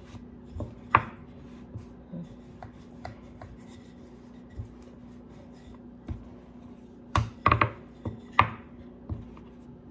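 Wooden rolling pin rolling bun dough flat on a wooden board, with scattered wood-on-wood knocks: one about a second in and a quick cluster near the end. A steady low hum runs underneath.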